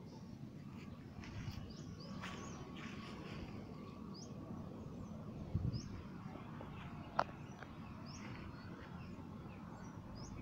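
Outdoor background with scattered short bird chirps. About halfway through there is a low thump, and a sharp click follows a couple of seconds later.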